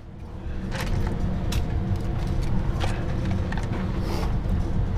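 Cartridges being pressed one at a time into a 1911 pistol magazine: a run of small metallic clicks over a steady low hum.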